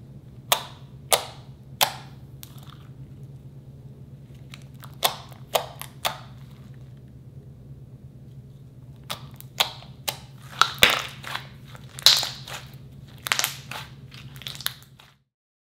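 Slime being pressed and stretched by hand, with trapped air popping out in sharp pops: three near the start, three more about five seconds in, then a quicker run of pops from about nine seconds on. A steady low hum lies under it, and the sound cuts off just before the end.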